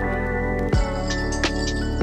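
Background music: sustained synth notes over a steady beat, a kick drum coming in about three-quarters of a second in.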